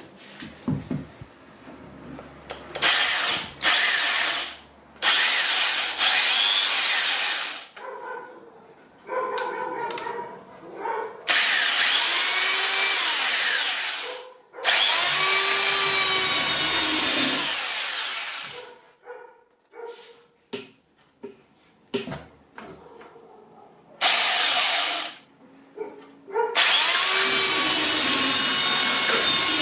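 Parkside belt sander switched on and off several times. Each run starts with a rising motor whine as the motor spins up and ends with a falling whine as it winds down. The longest runs last three to four seconds, and the last one starts a little before the end and keeps running.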